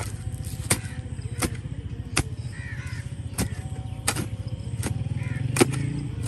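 Digging hoe chopping into soil, about one strike every three quarters of a second, eight strikes with one short pause. Crows caw a few times in the background.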